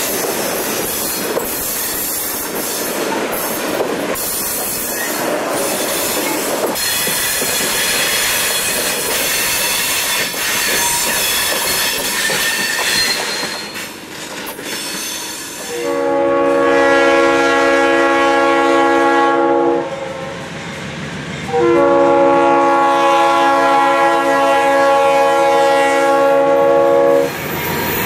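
Freight train of open-top hopper cars rolling past, wheels squealing and clacking over the rail joints. About 16 s in, a diesel locomotive's multi-chime air horn sounds two long blasts.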